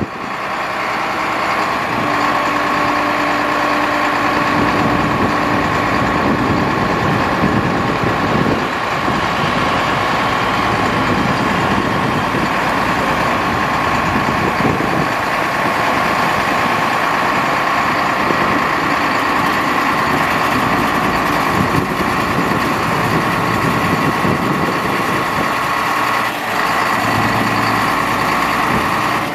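International DT360 inline-six diesel of a 1989 International 1754 dump truck running steadily while its hydraulic hoist raises the dump bed. A steady high whine sits over the engine sound and drops out briefly near the end.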